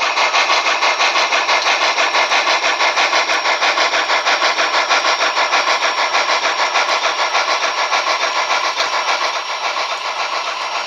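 Steam exhaust chuff from a model steam locomotive's SoundTraxx digital sound decoder, beating evenly at about four chuffs a second through the model's small speaker, thin with no deep bass, and easing slightly near the end. Its intensity is set by the decoder's Dynamic Digital Exhaust, which makes the chuff harder and louder as the motor's load rises.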